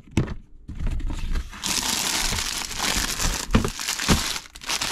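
Clear plastic bag crinkling loudly as it is handled and pulled out of a plastic storage bin, with a couple of knocks against the bin partway through.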